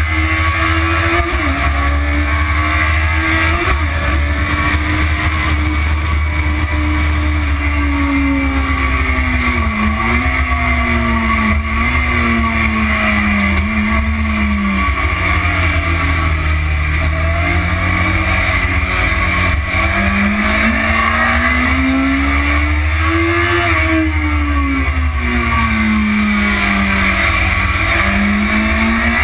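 Motorcycle engine heard from onboard at track speed, its pitch rising and falling as the rider accelerates and slows through corners. Heavy wind rumble on the microphone runs underneath.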